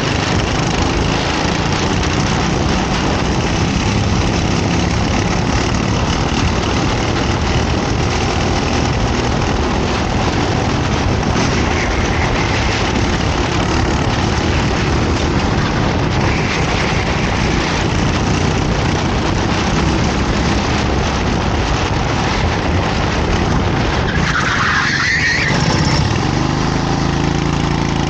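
Racing kart engine running continuously under load, its pitch shifting with the throttle. Near the end there is a brief high rising squeal, and then the engine settles into a steadier note.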